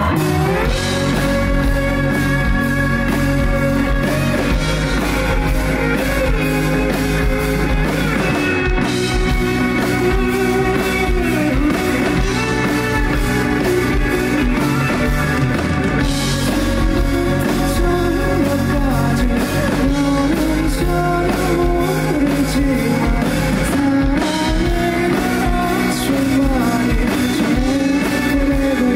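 A live rock band performing a song: electric guitar and drum kit, with a male lead voice singing over them.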